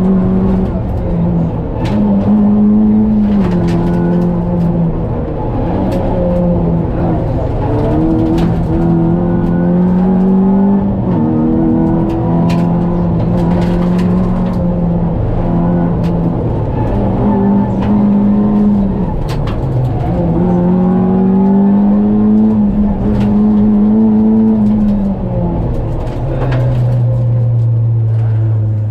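Opel Astra GSi rally car's four-cylinder engine at high revs, heard from inside the cabin, the revs climbing and dropping again and again with gear changes and braking, with occasional sharp knocks. Near the end the engine settles to a lower, steady note.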